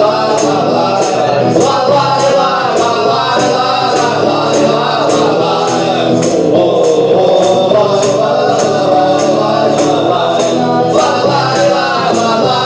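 Live acoustic band music: voices singing over a steady tambourine beat of about two strokes a second.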